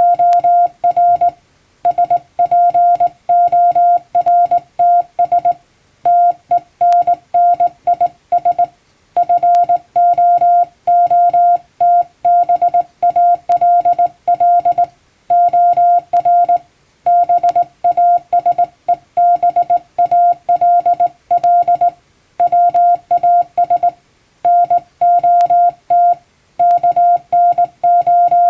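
Hand-keyed Morse code: a steady mid-pitched beep switched on and off in dots and dashes, sending plain English text letter by letter, with short pauses between words.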